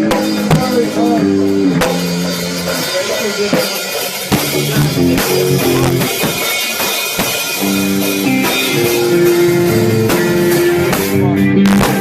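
Live rock band playing: a riff on electric guitar and bass that steps between held notes, over a drum kit.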